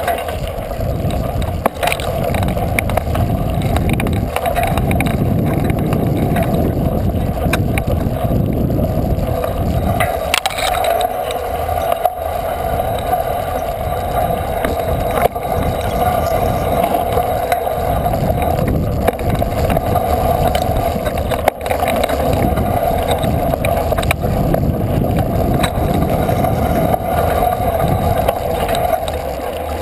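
A bike being ridden along a rough dirt trail: a steady drone over a shifting low rumble, with scattered knocks from the bumpy ground.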